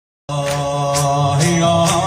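Opening of an unaccompanied religious chant: layered voices holding a drone-like chord over a steady beat about twice a second, starting a moment after the beginning.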